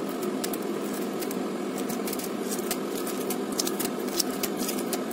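Hard-boiled egg being peeled by hand: scattered small clicks and crackles of eggshell coming away, over a steady background hum.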